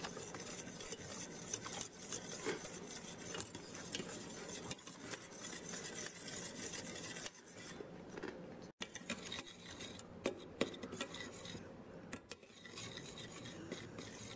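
Wire whisk mixing barbecue sauce ingredients in a stainless steel saucepan, its wires scraping and clinking against the pot's sides and bottom as it goes round.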